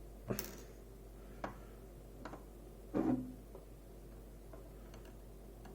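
Scattered small clicks and taps of metal tweezers working pins out of a lock cylinder, with a slightly heavier knock about three seconds in.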